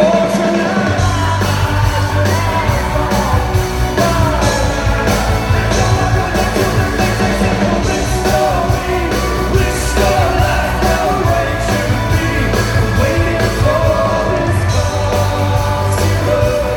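Live rock-band music with a man singing lead over it.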